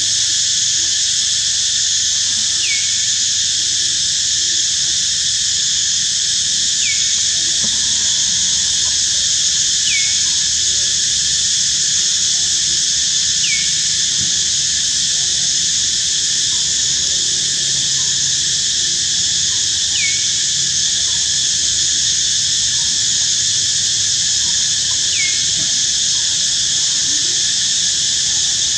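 A loud, steady chorus of insects, with a short falling chirp repeating every three to five seconds.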